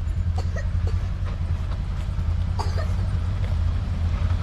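Side-by-side buggy's engine running steadily at low speed, with scattered clicks and knocks from the buggy working over a rough, rutted track.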